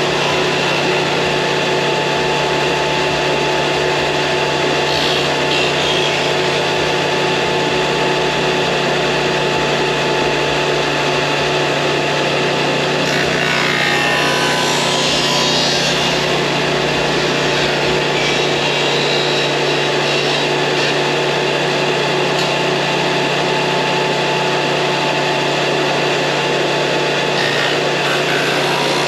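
Electric power tool motor running steadily, with a few short stretches of harsher noise as wood is worked against it.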